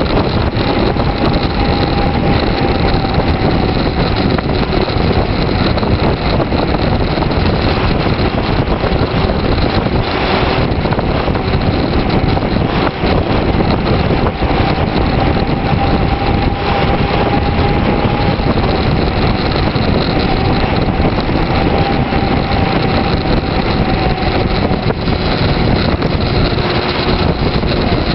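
Steady rush of wind over the microphone and tyre-on-asphalt noise from a road bicycle descending at speed, with a faint wavering whine running through it.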